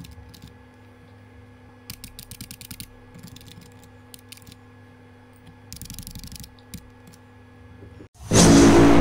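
Computer keyboard typing, quick runs of key clicks over a steady hum. Near the end a sudden loud boom cuts in and rings on.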